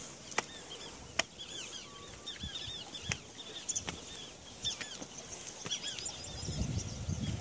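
Birds chirping with many short, repeated calls, over a few sharp clicks. A low rumble builds near the end.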